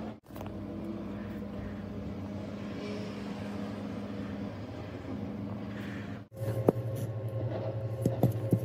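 12 V electric linear actuator motor running steadily as it extends and lifts the cardboard desk top; its hum stops suddenly about six seconds in. A lower steady hum with a few sharp clicks follows.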